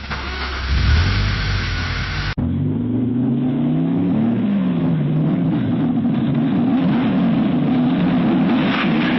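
Car engine revving, rising about a second in; after an abrupt cut a little over two seconds in, another car engine is revved up and down repeatedly.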